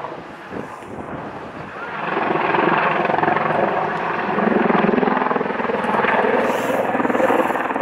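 Apache attack helicopter flying a display overhead, its rotor and turbine engines sounding steadily and growing louder about two seconds in as it banks round.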